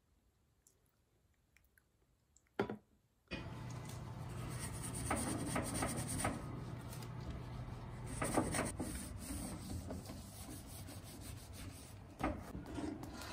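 A sponge scrubbing the metal tray of a toaster oven: a steady rubbing that starts about three seconds in, just after a short knock, with some stronger strokes along the way.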